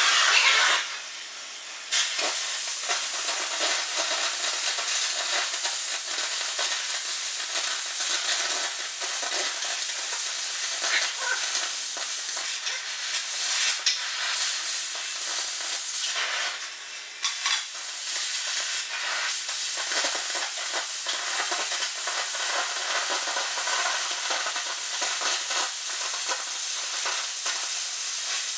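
Air carbon arc gouging on a steel forwarder blade: a continuous crackling hiss. It breaks off briefly about a second in and again around seventeen seconds in.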